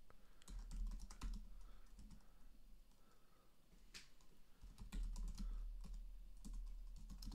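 Typing on a computer keyboard: scattered runs of key clicks, with a steady low hum underneath.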